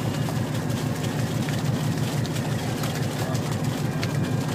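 Boat engine idling steadily, a low, even hum.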